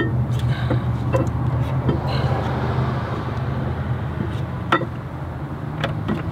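Several sharp metallic clicks as parts are handled at a truck's wheel hub, over a steady low engine hum.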